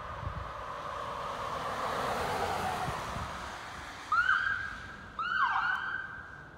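Paramedic response SUV passing on lights and siren: its passing noise swells and fades over the first few seconds. Then come two loud electronic siren blasts about a second apart, each jumping up to a high held tone, the second dropping off at its end.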